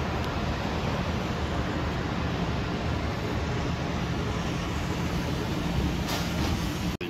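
Steady rushing outdoor noise with a faint low hum running under it.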